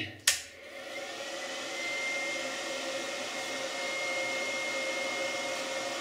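A sharp click as a 2000 W modified-sine-wave 12 V to 220 V inverter is switched on, then the inverter running with a steady whir. A thin high whine comes in about a second in, rises slightly and then holds steady.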